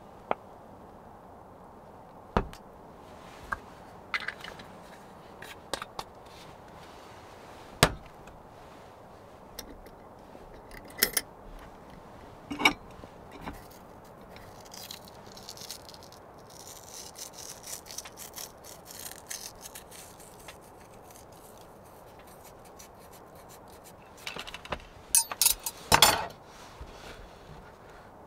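Cookware and utensils being handled: scattered clinks, knocks and scrapes over a faint steady background, with a quick run of louder clatters near the end.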